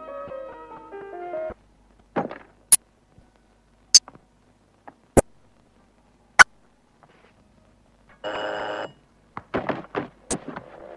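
Cartoon sound effects: single sharp clicks at irregular intervals, then an electric doorbell ringing for under a second about eight seconds in, followed by a quick run of clicks.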